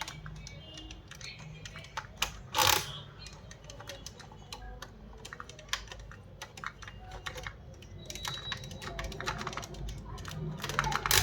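Rapid, irregular clicking and clattering of small hard parts, with one louder rattling crash a little under three seconds in and denser clicking near the end.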